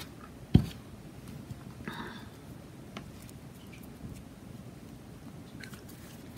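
A single sharp click about half a second in, then faint rustles and light ticks of hands handling yarn and a crochet hook.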